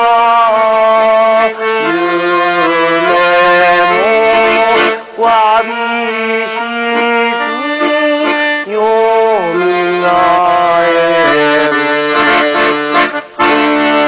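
Accordion-led music: a melody of held notes, some sliding between pitches, over sustained chords, with brief breaks in the sound about five seconds in and near the end.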